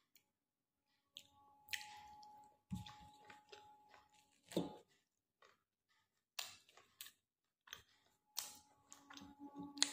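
A person chewing food close to the microphone: irregular wet smacks and small clicks of eating, with a louder one just before five seconds in.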